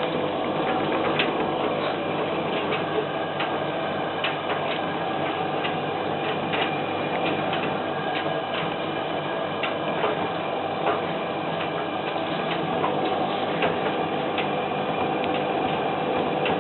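Servis M2001W tumble dryer running with a small half load of whites: a steady motor and drum hum with irregular light clicks as the drum turns. Vibration is low with so small a load.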